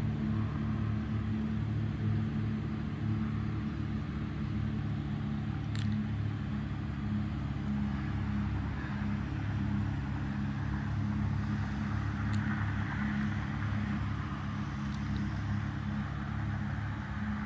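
Steady low motor hum that holds one pitch throughout, with a fainter hiss above it and a few light clicks.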